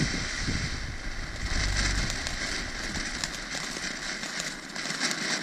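A small ground firework burning with a steady hiss and rapid, irregular crackles.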